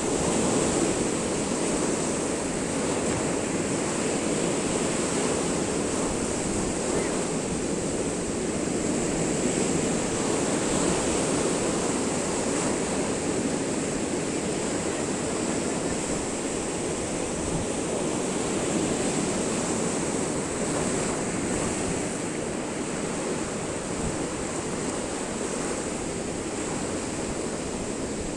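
Sea surf: small waves breaking and washing steadily over rocks and up to a concrete block embankment, an even, continuous rush of water.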